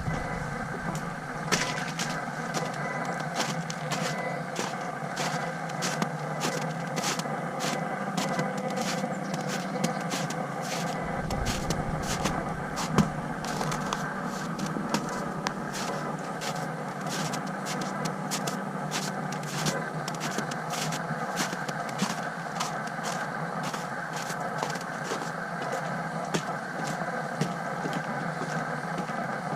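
Feiyutech G5 gimbal motor noise picked up by the GoPro Hero 5's built-in microphone: a steady whine of several tones with frequent clicks and crackles throughout. This interference is the sound issue of recording with the camera on this gimbal.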